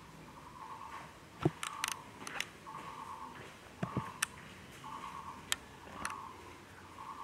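Scattered sharp clicks, a few of them with a low thump, over a short buzzing chirp that repeats about once a second.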